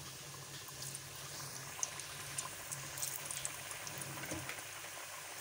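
Pieces of maida dough deep-frying in hot oil: a steady bubbling hiss with scattered small crackles.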